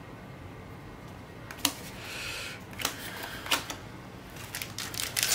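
Trading cards being set down and slid about on a cloth playmat: a few separate light clicks and a short rustle, then a denser run of clicks and rustling near the end as the cards are handled.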